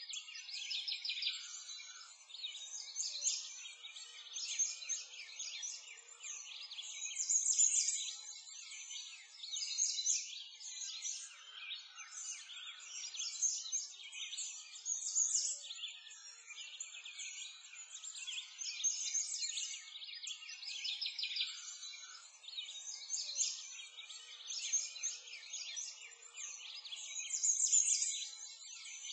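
A chorus of many birds chirping and singing, a dense overlapping mix of short high calls that swells and fades every few seconds.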